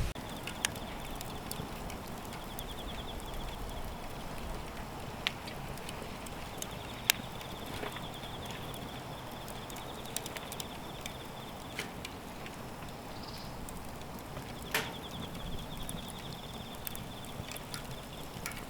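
Wood fire crackling in a fire grill, with scattered sharp pops over a steady low hiss. A high, rapid trill sounds three times in the background.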